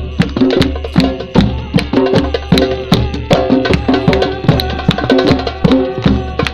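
Drumming with quick, regular strikes, played as music over short held melody notes and a steady low drone.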